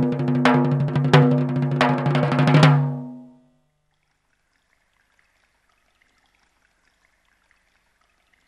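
Background music of pitched drum-like beats over a low sustained tone, struck about every two-thirds of a second, fading out about three seconds in; near silence follows.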